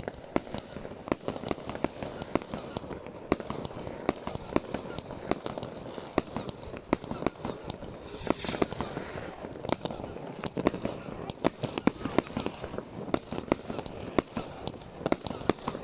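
Fireworks going off: a dense, irregular run of bangs and cracks from aerial shells bursting, several a second, with a hiss lasting about a second just past the middle.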